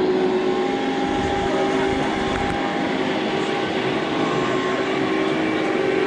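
A steady mechanical drone with a constant whine that holds its pitch, over a background of indoor crowd noise.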